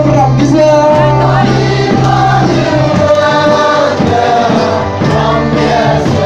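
A group of men singing a song together in unison, over a steady low instrumental bass note.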